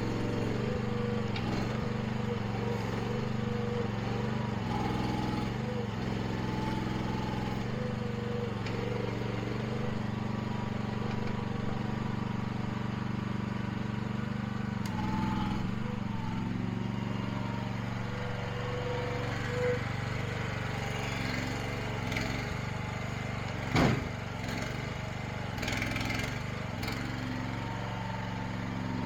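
Small gasoline engine of the working machinery running steadily, with a single heavy thud about 24 seconds in.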